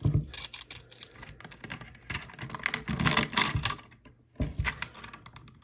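Irregular hard-plastic clicks and rattles of a Transformers Ultra Magnus toy being handled, as its missile accessory is pegged into the ports on the truck. There is a brief lull about four seconds in.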